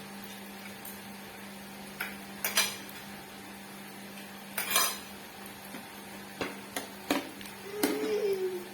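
Utensils clinking and knocking against plates and bowls during a meal: a few scattered sharp clinks, the loudest about two and a half and almost five seconds in, then a quicker run of clatters near the end. A low steady hum runs underneath, and a short pitched sound comes near the end.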